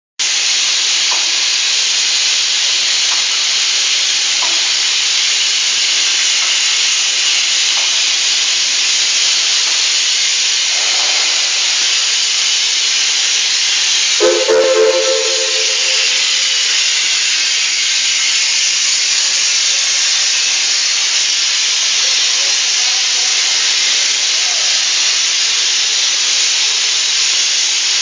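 A loud, steady hiss, as of gas or air rushing out under pressure, with a brief low tone about halfway through.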